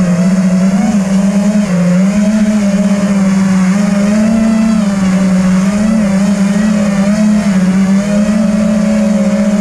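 FPV quadcopter's motors and propellers whining steadily, the pitch wavering slightly up and down as it flies.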